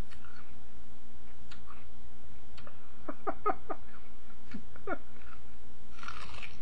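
A bite into a raw rhubarb stalk near the end. Before it there are a few light clicks and, about halfway through, several short squeaks that fall in pitch.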